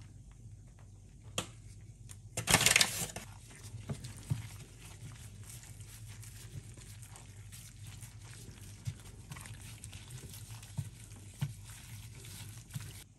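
Gloved hand rubbing spices and flour into raw fish pieces in a glass baking dish: faint wet rubbing with a few light knocks, over a steady low hum. A short, loud rustle comes about two and a half seconds in.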